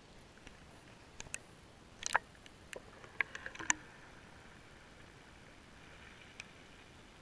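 A GoPro Hero3+ Silver in its waterproof housing, dangled on a string, going under the water's surface: a scatter of sharp clicks and knocks between about one and four seconds in, with one more click later. Otherwise only a faint steady hiss.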